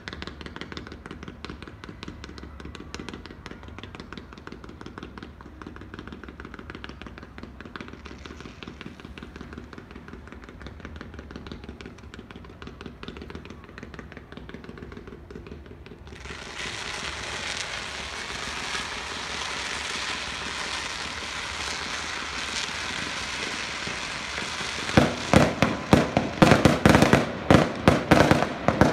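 Fireworks display: a dense, steady crackling for the first half, then a loud rushing hiss sets in suddenly about halfway through, and near the end a fast volley of sharp bangs as aerial shells burst.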